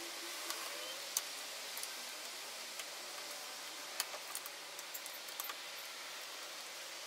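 Faint scattered clicks and light taps of a hand tool undoing the screws of a Mazda MX-5's steering column shroud, over a steady low hiss.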